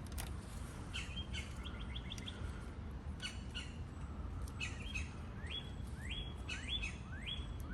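A small bird chirping repeatedly: clusters of short high chirps, then a run of quick rising calls in the second half, with a few sharp clicks among them.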